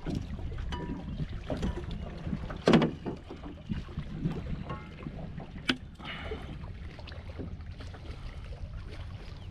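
Steady low rumble of wind on the microphone aboard a small fishing boat, with scattered knocks and clicks from gear being handled: the loudest knock comes about two and a half seconds in, and a sharp click just before six seconds.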